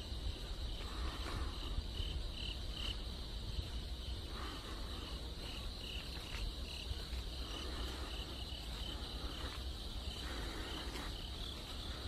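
Crickets and other insects chirping in a steady high chorus, with runs of short chirps repeated a couple of times a second, over a low steady rumble on the microphone.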